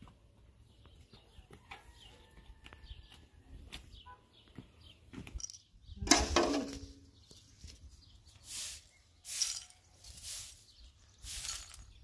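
Straw broom sweeping a bare dirt yard: a series of swishes about a second apart in the second half, after one louder scrape about halfway through. Faint bird chirps in the quieter first half.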